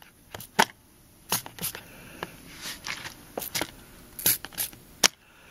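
Trigger spray bottle of Windex squirting again and again, about a dozen short sprays, onto air-line fittings to find an air leak by its bubbles.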